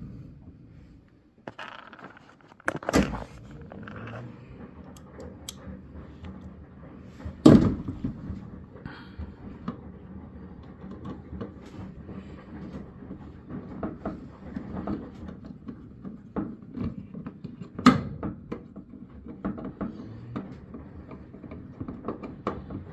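Metal-and-plastic handling noises as a screw is driven in to fasten a washer pedestal's drawer slide track: scraping and small clicks, with three sharper knocks standing out.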